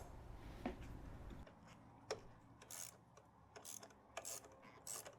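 Faint clicks and short rasping strokes of a ratchet wrench working the engine-mount bracket bolts, the strokes coming roughly every half to two-thirds of a second in the second half.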